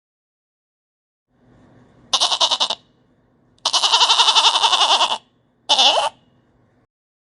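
Goat bleating three times: a short quavering bleat, then a long one of about a second and a half, then a brief one.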